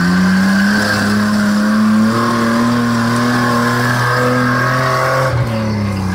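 Nissan off-road 4x4's engine revving high and held under load as its tyres spin in mud and leaves on a steep climb. The pitch creeps up over the first couple of seconds, holds, then drops about five seconds in as the revs come off.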